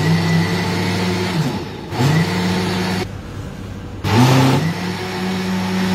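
Electric countertop blender running, blending boiled mung beans with pandan-leaf water into a smooth purée. The motor note dips and climbs back up to speed twice, about 2 and 4 seconds in, then slows near the end.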